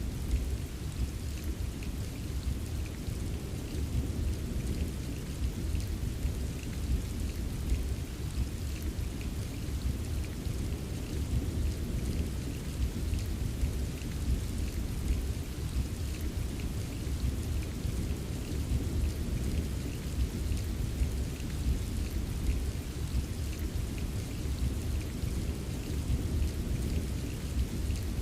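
Steady rain with fine pattering drops over a constant deep rumble.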